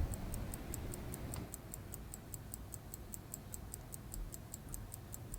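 Hamilton 996 railroad pocket watch ticking: faint, quick, even ticks about five a second.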